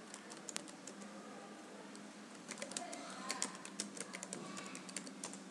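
Computer keyboard keys clicking: a few scattered taps, then a quicker run of keystrokes from about halfway through.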